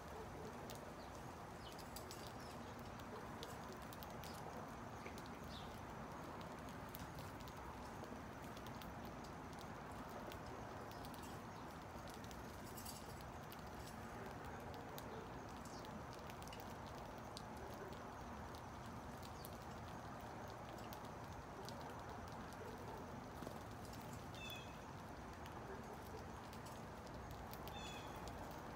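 House sparrows pecking cracked corn and milo off concrete: scattered light taps and clicks, with a few short chirps near the end, over a steady background hum.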